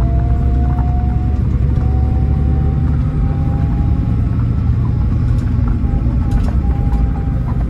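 Cabin sound aboard a Scania K440 coach on the move: a steady low drone from its 13-litre six-cylinder diesel and road rumble, with a thin whine that rises slowly and then holds, and scattered light clicks.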